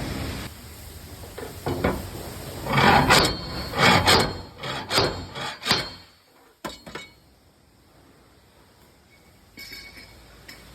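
Heavy knocks on a car's bodywork, about one a second, during work to bring a hood that sits higher than the fender back into line, followed by a couple of sharp clicks.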